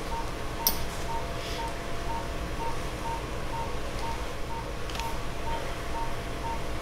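Operating-room patient monitor's pulse oximeter beeping in time with the heartbeat, one short mid-pitched beep about twice a second, over a low steady background hum. Two sharp clicks, one under a second in and one about five seconds in.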